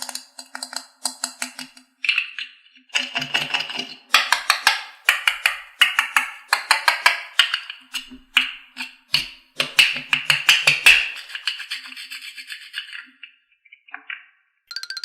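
A rapid, irregular run of clicks and knocks, several a second, thinning out near the end.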